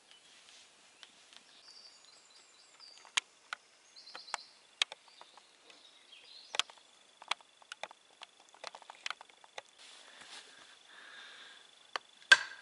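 Wood campfire crackling, with sharp pops scattered through, and small birds chirping in the background. Near the end come two loud knocks as a chisel works inside the hole bored in the wooden sheath blank.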